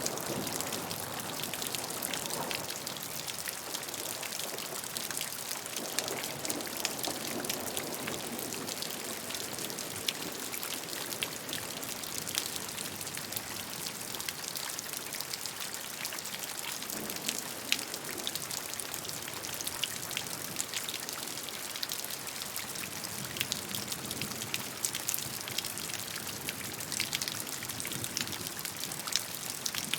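Steady rain falling, with many separate raindrop hits ticking over an even wash of noise.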